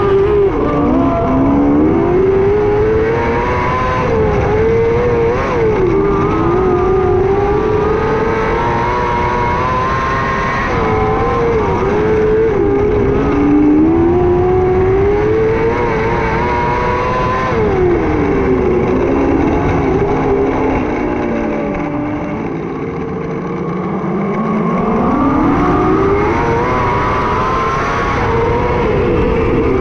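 600cc micro sprint car's motorcycle engine at racing speed, its pitch climbing and falling over and over as the driver accelerates and lifts off. About three-quarters of the way through it drops low and quieter for a couple of seconds, then climbs again.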